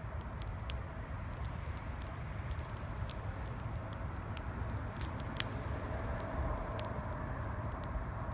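Campfire wood crackling and popping in irregular sharp snaps, a few louder pops among them, over a steady rumble of highway traffic.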